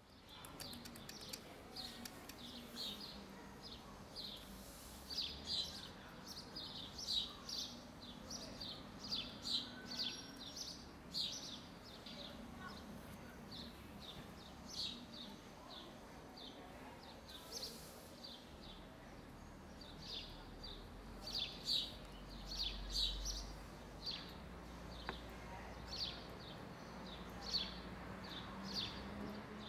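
Birds chirping in short, irregular calls, over a steady low background.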